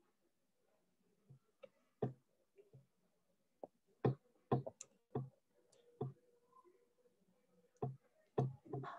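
A scattering of faint, sharp clicks, bunched about four to six seconds in and again near the end, made while a digital newspaper page is being moved around on screen.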